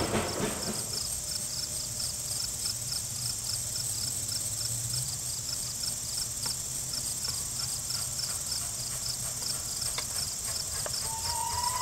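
Steady chorus of insects, a high buzzing drone with an even, repeating pulse. Near the end, the whistle of steam locomotive #242 begins to blow, a clear held tone that rises slightly.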